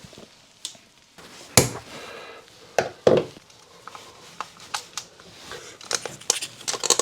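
Irregular sharp clicks and knocks of hand tools, stiff solid-core cables and a plastic wiring accessory being handled at a wall box, the loudest about a second and a half in and a quick cluster near the end.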